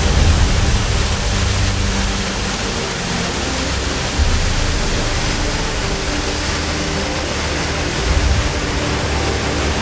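Snowmelt water pouring over a small waterfall, a loud steady rush with a deep low rumble that swells briefly a few times.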